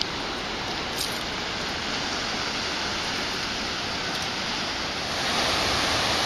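Ocean surf washing on the shore: a steady rushing that swells louder about five seconds in as a wave comes in.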